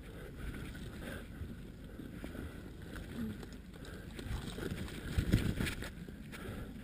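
Rustling and scraping of dry grass and brush against clothing and gear as a person crawls through undergrowth, with louder scrapes and thumps about five seconds in.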